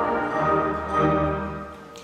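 Orchestral music, fading down near the end.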